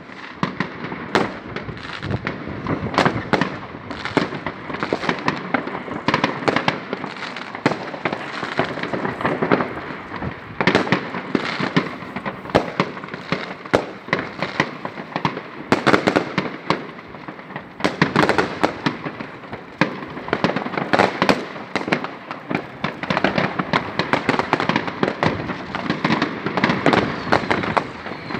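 New Year's Eve fireworks and firecrackers going off continuously, a dense, unbroken run of cracks and bangs overlapping one another.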